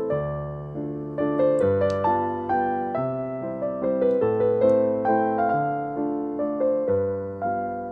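Background piano music: a gentle melody of single notes, about two a second, over slow low notes.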